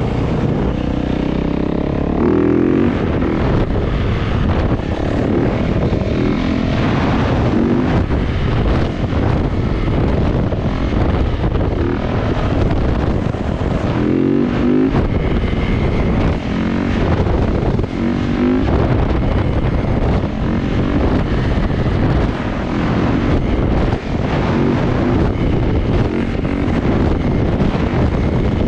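Motorcycle engine running under load, its revs rising and falling again and again, over wind and road noise.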